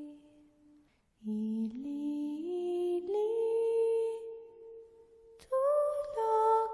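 Slow background music of long held notes that glide from one pitch to the next. It drops out for a moment about a second in, and a louder phrase comes in near the end.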